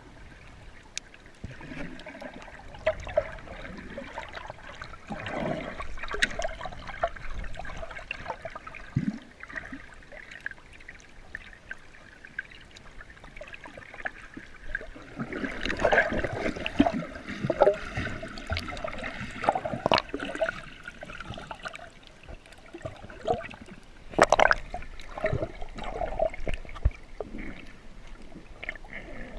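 Water gurgling and swishing around a camera held underwater, with scattered short clicks and pops, louder in a stretch about halfway through and again near the end.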